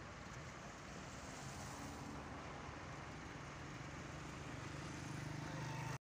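Faint road traffic: a steady low engine hum over background noise, growing slowly louder as a vehicle draws nearer, cut off abruptly at the end.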